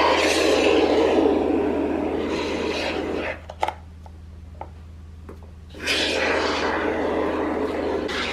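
Can of expanding spray foam dispensing through its straw nozzle. A rough, sputtering hiss runs for about three seconds, pauses with a few small clicks, then starts again about six seconds in.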